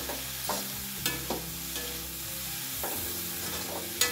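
Metal spatula stirring and scraping cooked green peas around a metal kadhai over a light sizzle, in several short scrapes with the sharpest near the end.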